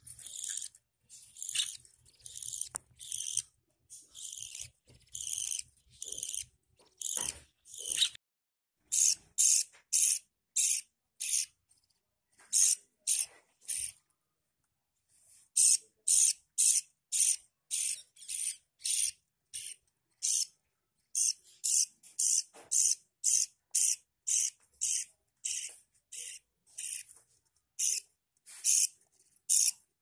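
Budgerigar chicks in a clay nest pot giving raspy, high-pitched begging calls, about two or three a second, with a short pause about halfway.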